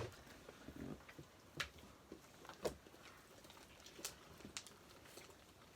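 Homemade slime being kneaded and stretched by hand, giving faint, scattered little clicks and squelches, a few at a time.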